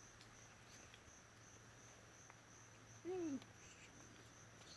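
Faint insect chirping, a steady high pulsing trill, with a low hum beneath it. About three seconds in comes one short voice-like call that rises and falls in pitch, the loudest sound.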